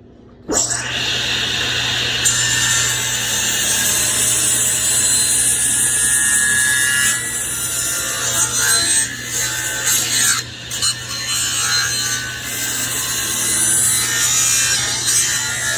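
A power saw starts about half a second in and runs steadily with a constant motor hum, its cutting noise rising and falling as the blade cuts through a board along a marked line.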